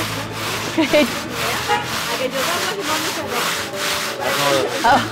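Hand-made shir yakh: a metal ice-cream cylinder turned back and forth by hand in a bed of crushed ice and salt, grinding and scraping rhythmically at about three strokes a second.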